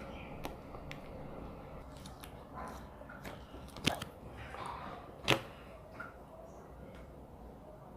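Homemade slime being handled on a table: low handling noise with a few faint ticks and two sharp snaps, about four and five seconds in.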